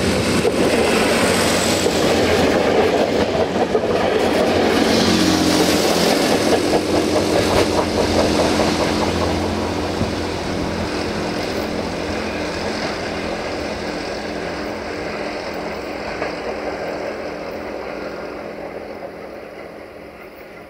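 Class VT 614 diesel multiple unit passing close by, its underfloor diesel engine running under loud wheel-on-rail noise with some clatter over the rail joints. The sound then fades steadily as the train pulls away.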